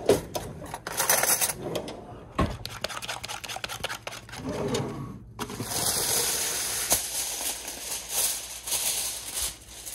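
Kitchen handling sounds: a rustle of a plastic trash bag, then an egg being whisked in a paper bowl with scattered clicks and a thump. From about five seconds in, a sheet of aluminum foil crinkles and rustles loudly for about four seconds.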